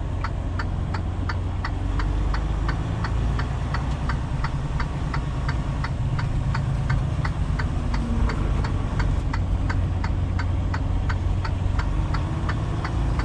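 Semi-truck's diesel engine running low and steady, heard from the cab, with a turn-signal flasher clicking evenly at about three clicks a second.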